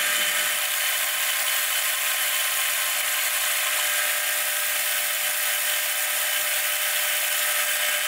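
Metal lathe running while a boring bar cuts the inside of an annealed steel ball-bearing inner race, opening it to ring size. A steady, high-pitched whir with a hiss.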